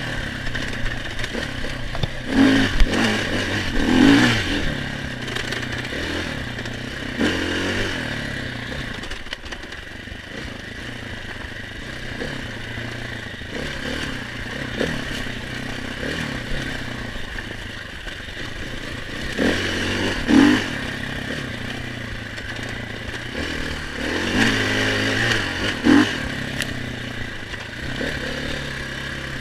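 Enduro dirt bike engine running and revving in short bursts, with clattering and scraping; the revs surge near the start, about two-thirds of the way through, and again near the end.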